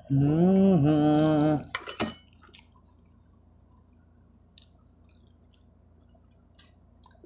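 A drawn-out hummed "mmm" of enjoyment for about a second and a half while eating balut, then a single spoon clink and faint chewing and mouth clicks.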